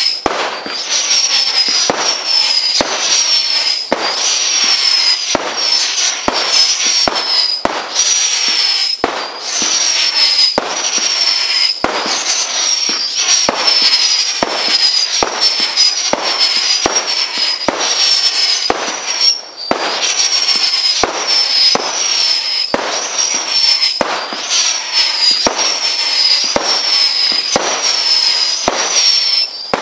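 Brothers Pyrotechnics 48 Droning Diamonds barrage cake firing shot after shot, with sharp launch thumps and cracks. Over them runs a high whining drone from the droning effects, about one a second, each falling slightly in pitch.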